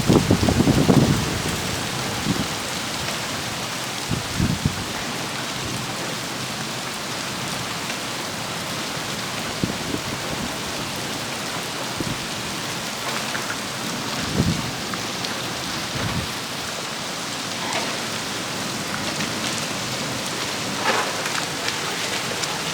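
Heavy rain pouring down in a steady hiss, with a few short low thuds, the loudest at the very start.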